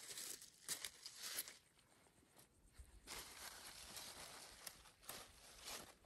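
Faint rustling and tearing of cucumber leaves and vines as hands reach in and pick cucumbers off the plants. It comes in several short bursts in the first second and a half, then a longer stretch about three to five seconds in.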